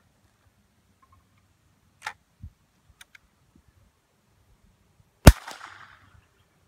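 A CBC Model 151 single-shot break-action rifle in .32-20, fed light cast-bullet handloads, fires once about five seconds in: a sharp crack with a short echo. It is preceded by a few clicks and a knock as the rifle is handled and readied.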